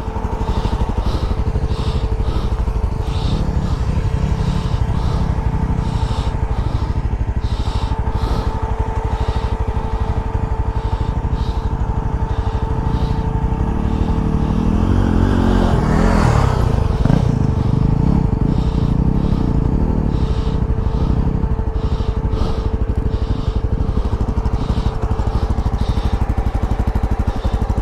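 Yezdi Adventure motorcycle engine running steadily while being ridden, with a steady whine over the rumble. It swells louder for a few seconds about halfway through.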